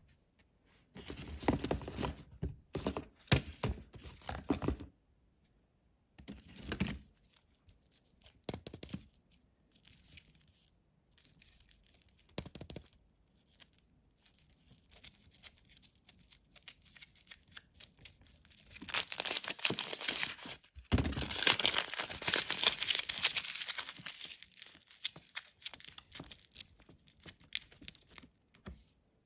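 Thin foil wrapper of a Kinder Surprise chocolate egg crinkling and tearing as fingers peel it away from the egg. Short scattered bursts of crinkling come first, then a long, denser and louder run of crinkling past the middle that stops shortly before the end.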